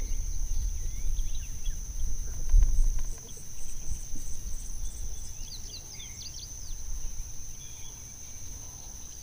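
Steady high-pitched insect trill, the constant drone of crickets or similar insects, with a few short bird chirps a little past the middle. A low rumble sits underneath and is louder in the first three seconds.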